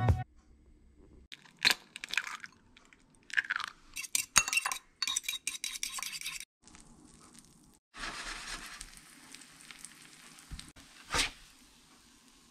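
Kitchen cooking sounds: a metal fork clinking and beating egg in a ceramic bowl in a run of quick strokes, then a stretch of sizzling as the egg-soaked bread fries in a pan, and a sharp clink near the end.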